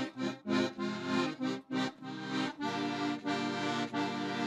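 Piano accordion playing chords: short, detached chords for the first two seconds or so, then longer held chords.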